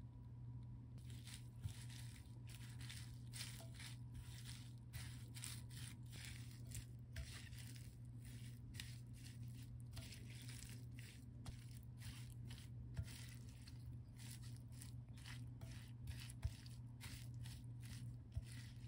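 A spatula tossing wild chives with seasoning in a glass bowl: soft, irregular rustling and squishing strokes, starting about a second in, over a low steady hum.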